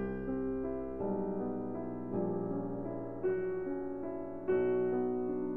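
Background music: gentle piano playing a melody and chords, new notes struck about once a second.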